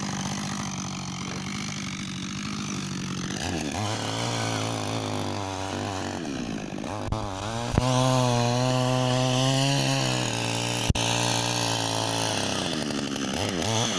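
Husqvarna 562 XP two-stroke chainsaw cutting through lake ice. It revs up about four seconds in, runs loudest in the middle with a couple of sharp knocks, and eases back off near the end.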